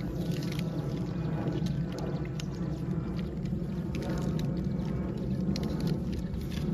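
Gray langur crunching an apple close to the microphone: irregular crisp clicks over a steady low rumble.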